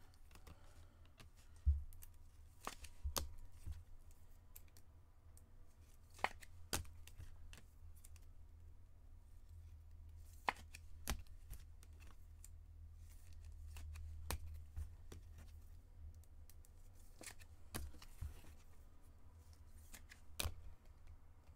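Quiet, scattered taps, clicks and light rustles of trading cards and packaging being handled, over a low steady hum.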